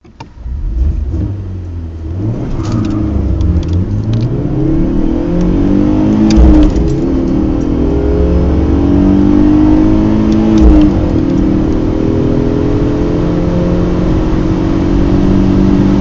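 Two four-cylinder petrol car engines, a BMW 318i E46 and a VW Golf 6 GTI turbo, heard from inside the cabins and overlaid as both accelerate hard from a standstill. Their revs climb and drop back at several gearshifts.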